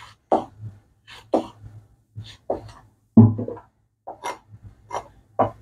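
Chinese cleaver slicing long green chillies on a wooden cutting board: a run of irregular knocks, about two or three a second, as the blade strikes the board.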